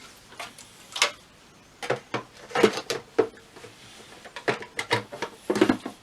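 Irregular hard plastic knocks and clicks of a humidifier's water tank being handled and fitted, several in quick succession near the middle and end.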